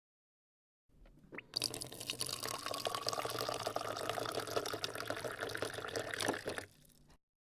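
Refrigerator water dispenser running: after a quiet hum and a brief rising chirp about a second in, a stream of water pours for about five seconds with a faint tone that rises slowly, then stops.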